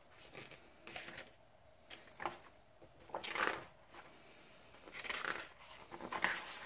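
Pages of a thick hardcover comic omnibus being turned by hand: several soft paper swishes and rustles about a second apart, the loudest about halfway through.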